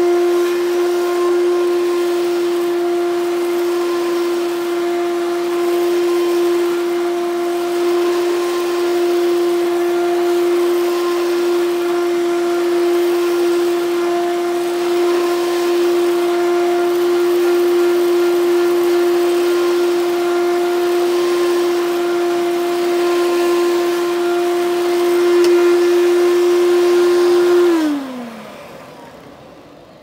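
Vintage Fantom Thunder vacuum cleaner motor running with a steady high whine. Near the end it is switched off, and the whine falls in pitch and fades as the motor spins down.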